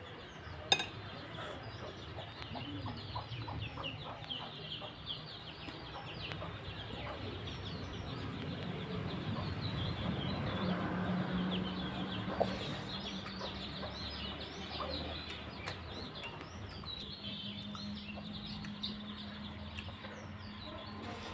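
Close eating sounds: chewing and handling rice and chicken curry, with a sharp clink about a second in. Birds chirping and clucking are heard throughout in the background.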